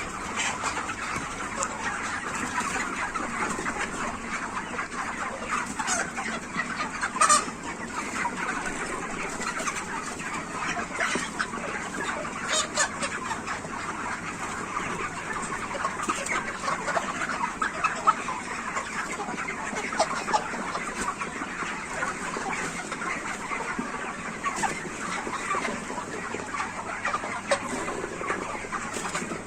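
A large flock of broiler chickens clucking, a dense steady chatter of many overlapping calls, with a few sharp clicks now and then.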